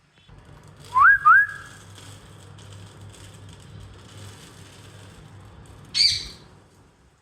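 A parrot gives two quick rising whistles about a second in, then a single short call near the end.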